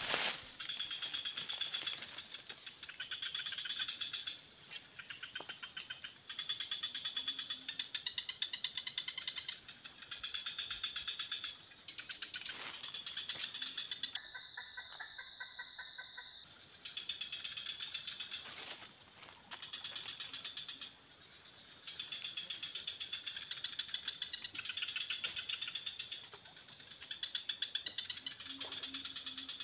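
Chorus of tropical insects: a steady high-pitched whine under repeated stretches of fast, rhythmic pulsing chirps, each lasting a second or two.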